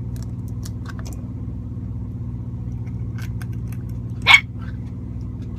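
A dog gives one short, sharp bark about four seconds in, over the steady low hum of the truck's idling engine.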